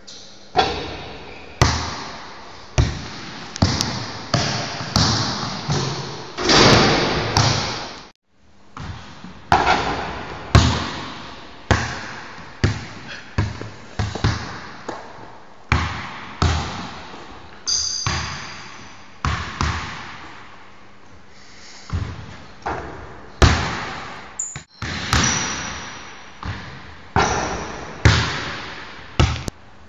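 Basketball bouncing repeatedly on a hardwood gym floor, about one sharp bounce a second, each echoing in the large hall. Two brief high squeaks come in the second half.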